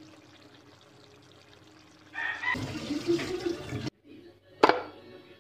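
Water pouring and splashing for nearly two seconds, starting about two seconds in and stopping abruptly; a little later comes a single sharp knock.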